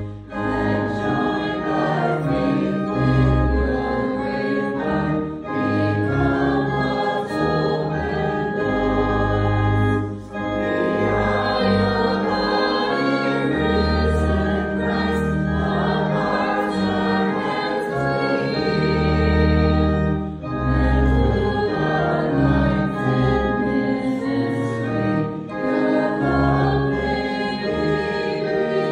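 A hymn sung by voices with organ accompaniment, with long held chords and a deep bass line.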